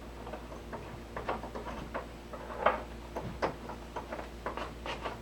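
Irregular light clicks and knocks from the rack's metal connector bolts, cross dowels and Baltic birch plywood parts being handled during assembly, two of them louder near the middle, over a faint steady hum.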